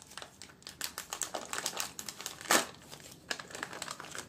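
Plastic snack packet of salted cashews crinkling and crackling as it is handled, with a louder crackle about two and a half seconds in.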